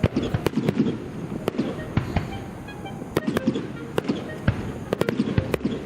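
Fireworks bursting in quick, irregular succession: many sharp bangs and cracks, a dozen or more over a few seconds.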